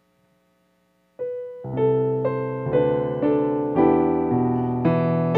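Electric keyboard played with a piano sound: after a second of silence one note sounds, then chords and a melody begin and carry on steadily.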